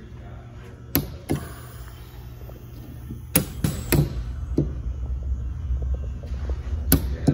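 Prototype ventilator cycling: its solenoid valves click in clusters of two or three about every three seconds, over a low steady hum that grows louder about four seconds in.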